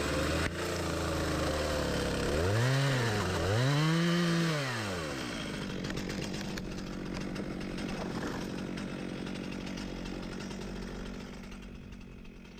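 Two-stroke chainsaw idling, then revved twice, about two and a half and four seconds in, each rev rising and falling in pitch. It settles back to a steady idle that grows quieter near the end.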